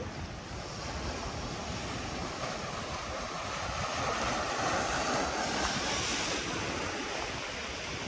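Ocean surf washing onto the beach, swelling to its loudest about halfway through and then easing off, with wind rumbling on the microphone.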